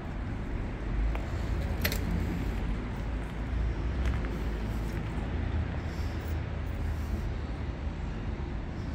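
Outdoor street ambience: a steady low rumble, with a sharp click about two seconds in and a fainter one about four seconds in.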